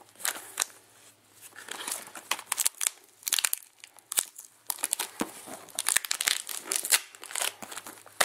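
Clear plastic wrapping being pulled and crinkled off a cardboard box by hand, with irregular crackles and short tearing rips.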